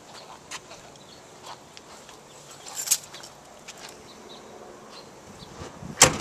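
Handling noise from a handheld camera: scattered small clicks and rustles over a faint outdoor background, with a sharp click about three seconds in and a loud knock near the end as the camera swings.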